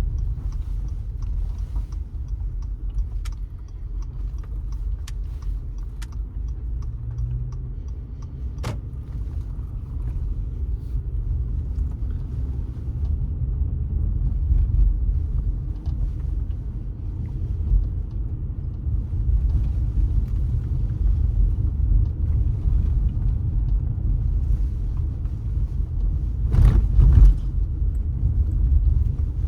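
Car driving on city streets: a steady low road-and-engine rumble. For the first several seconds there is a light, fast, even ticking and a few sharp clicks. A brief louder rush comes near the end.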